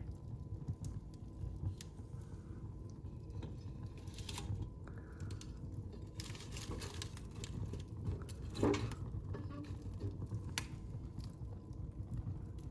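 Wood fire burning in a fireplace: a steady low rumble of flames with irregular crackles and small pops, and one louder crack about two-thirds of the way through.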